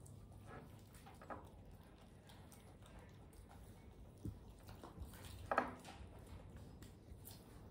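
Faint soft chewing and handling sounds from a small monkey eating corn, with a sharp click a little past halfway and one short squeak about five and a half seconds in.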